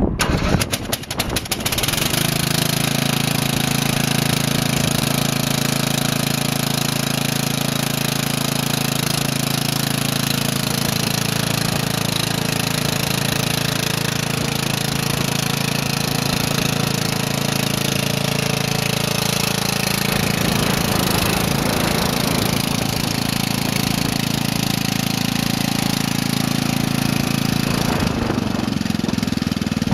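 Huskee 12 HP lawn tractor's engine running. It is uneven for the first second or two, then runs steadily, with a small change in pitch about two-thirds of the way through.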